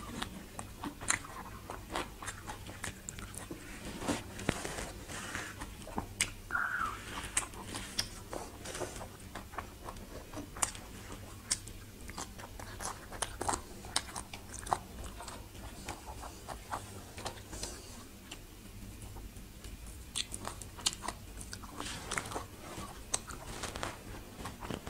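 ASMR-style close-up chewing and crunching of crisp fresh lettuce and raw salmon salad: irregular crisp crunches and bites, often several a second.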